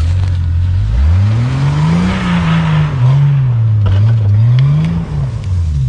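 Jeep engine revving: it climbs steeply about a second in, rises and falls at high revs for a few seconds, then drops back near the end. A rushing noise sits over it around two to three seconds in.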